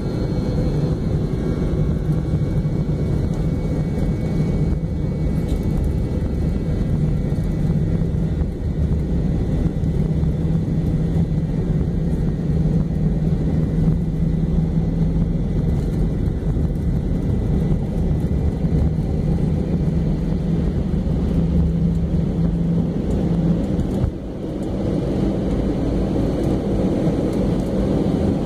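McDonnell Douglas MD-88 heard from the cabin on its takeoff roll: the rear-mounted Pratt & Whitney JT8D turbofans at takeoff power, a loud steady low drone with a held hum, over the rumble of the wheels on the runway. Near the end the rumble drops off suddenly as the airliner lifts off.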